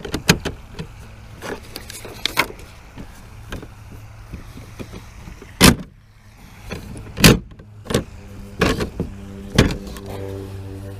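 Sharp knocks, clacks and rattles of a folded kayak seat's frame being handled and lifted against the plastic hull, with the loudest clacks in the second half, a second or two apart. A steady low hum runs underneath.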